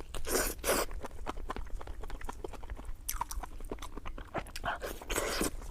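Close-miked chewing of fatty, tender pork belly: a run of short wet mouth clicks and smacks, with a few longer, louder smacking bites about half a second in and again near the end.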